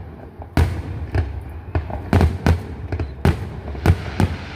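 Fireworks bursting in a quick, irregular string of about nine sharp bangs, each trailing off in a short low rumble.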